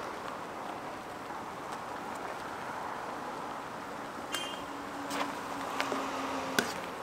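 Steady sizzle of battered food deep-frying in hot oil. About four seconds in come a few sharp clicks of utensils.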